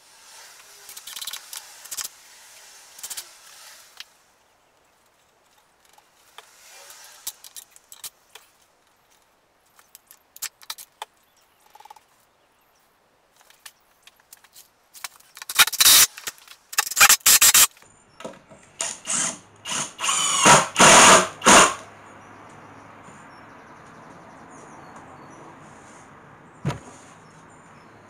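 A wooden tabletop being handled. First come light taps and rustling, then a run of loud scraping and knocking with squeaks as the heavy top is moved and turned over, and after that a faint steady hum.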